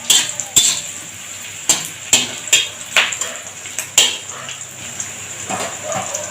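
A spatula knocking and scraping against a wok while onions and chopped ginger are stir-fried in hot oil. There are about seven sharp, irregular knocks over a faint sizzle.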